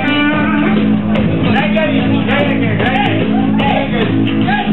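Live rock band playing loud: electric guitars and bass holding a sustained chord with voices singing over it.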